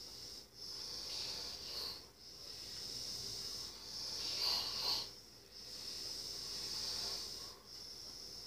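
A sleeping person's hissing, wheezy breathing, in cycles about every one and a half to two seconds with short breaks between, swelling louder about four and a half seconds in.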